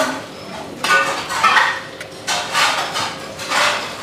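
Hands kneading and mixing minced mutton with raw eggs and spices in a stainless-steel bowl: a series of wet slapping, squishing strokes, roughly one a second, with the steel bowl knocking.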